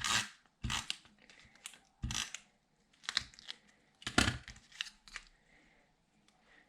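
Paper and cardstock being handled and positioned on a scrapbook page: a series of short rustles and crinkles, thinning out in the last second or two.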